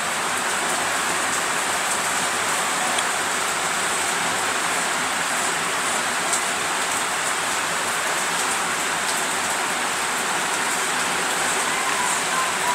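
Steady, even background hiss at a constant level.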